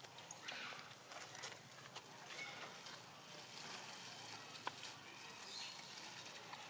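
Faint outdoor background hiss with a few short, soft sounds scattered through it and one sharp click about two-thirds of the way in.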